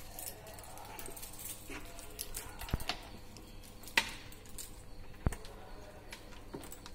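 Patch leads being handled and their banana plugs pushed into a wattmeter's terminals: light rattling of a bundle of wires with a few sharp plastic-and-metal clicks.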